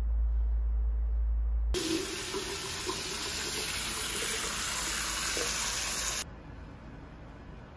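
A steady low hum, then about two seconds in a bathroom sink tap starts running, a steady stream of water splashing into the basin and over a small child's hands and a plastic floss pick held under it. The running water cuts off suddenly near the end.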